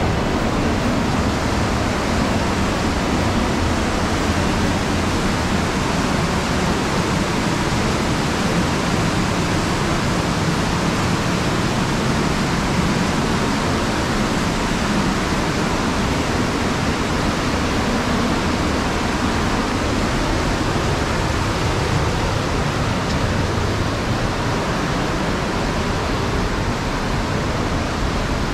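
Fast mountain river rushing through rapids: a loud, steady, unbroken wash of water noise.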